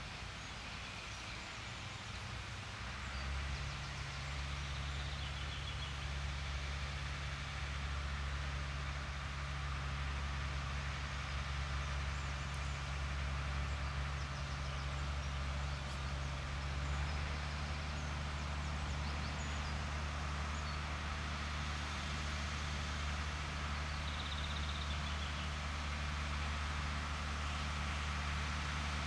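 Fendt Farmer 311 LSA tractor's diesel engine running steadily under load while pulling a rotary hay tedder, getting louder about three seconds in as it heads toward the listener. Birds chirp faintly a couple of times.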